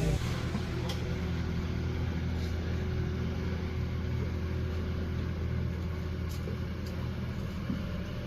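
Off-road 4x4's engine running steadily at low revs, a constant low hum, with a few faint clicks.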